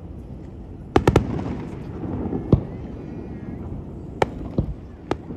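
Aerial fireworks bursting: a quick run of three sharp bangs about a second in, then single bangs every second or so, over a continuous low rumble of the display.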